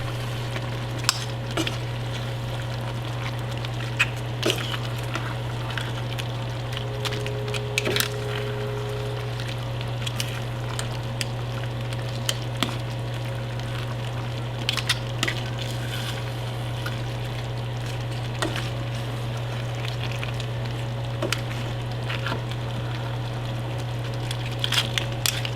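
Pot of seafood kare-kare, a thick peanut stew, simmering on the stove: scattered soft pops and bubbling clicks at irregular intervals over a steady low hum.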